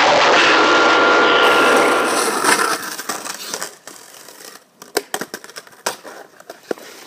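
A loud, dense noise with a steady high tone held through the first two seconds or so, then it drops away to a few sharp clicks and scrapes of a skateboard deck and wheels knocking on asphalt as a rider slides down onto the road.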